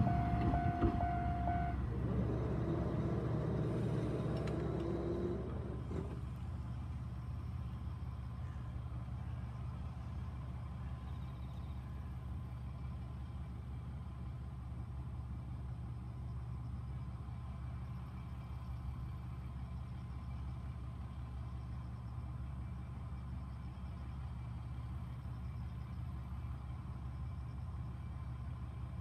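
Level-crossing warning signal sounding a steady tone that stops about two seconds in, followed by a few seconds of mechanism sound as the barrier arms lift. After that, a steady low engine rumble.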